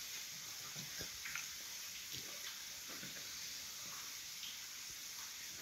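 Faint steady hiss with a few soft, short clicks and chewing sounds: a metal fork tapping and scraping a glass bowl of kimchi and a person chewing it.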